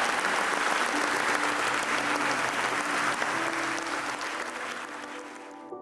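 Audience applauding, the clapping slowly dying away and then cutting off abruptly just before the end, over soft background music.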